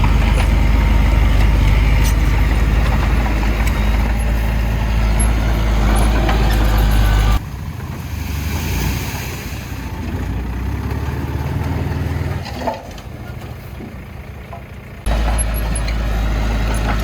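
Heavy diesel machinery running, a steady low engine sound. It drops abruptly to a quieter level about seven seconds in, with a single knock near twelve seconds, and comes back loud suddenly about fifteen seconds in.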